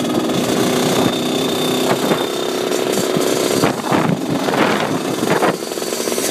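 Dirtbike engine running while riding on the road, its note swelling and easing in a few surges in the second half.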